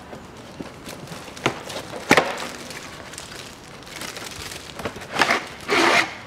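Clear plastic bag crinkling and rustling as a new panel air filter is pulled out of it and its cardboard box, in a few separate bursts, the longest near the end.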